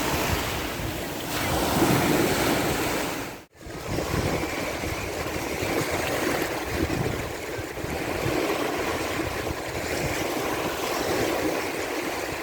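Sea waves washing onto a sandy beach in a steady surf wash, with wind buffeting the microphone. The sound cuts out abruptly for a moment about three and a half seconds in, then resumes.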